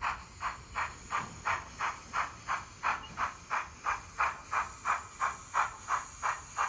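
ESU sound decoder in a model NSW 38 class steam locomotive playing steam exhaust chuffs through its small speaker: a sudden start, then an even beat of about three chuffs a second. The chuffs are a custom chuff sound file loaded into the decoder.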